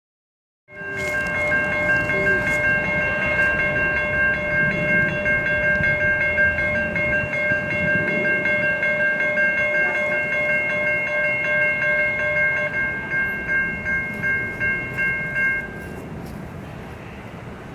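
Grade-crossing warning bell ringing steadily at one pitch over a low rumble, cutting off about 16 seconds in while the rumble goes on.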